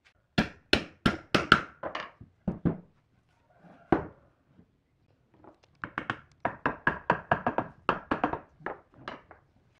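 Hammer blows on solid wood blocks, driving wooden dowels into their holes to join the blocks. About eight strikes come in the first three seconds and a single one about four seconds in, then a faster run of strikes from about six to nine seconds.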